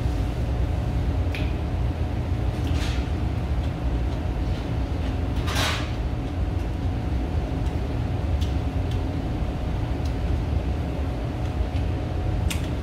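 Steady low hum of a restaurant room with a faint steady tone in it, under a few short eating noises from a man feeding himself with chopsticks, the longest about halfway through.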